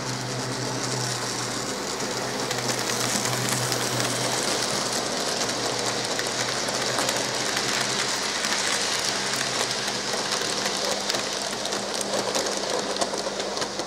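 N gauge model freight train of tank wagons and vans running past close by: a steady rattling clatter of small wheels on the track with a whirr from the locomotive's motor, getting a little louder over the first few seconds.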